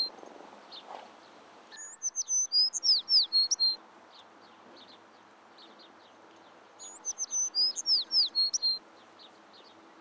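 A songbird singing two identical phrases of high whistled notes, many slurring downward, about five seconds apart, with faint chirps between them over a soft steady hiss.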